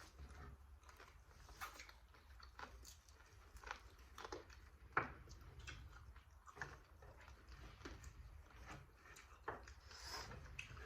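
Faint chewing and eating sounds from people eating a meal of fried chicken and pancit: scattered, irregular small clicks and crunches. The sharpest click comes about five seconds in.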